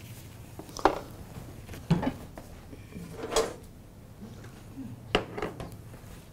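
Kitchen clatter: four sharp knocks and clinks of utensils and cookware, spread a second or so apart, the third with a short ring.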